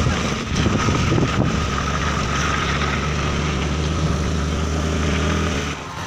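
Motor scooter riding on a wet road: a steady rush of wind and tyre noise with the engine's low drone underneath. It dips suddenly near the end.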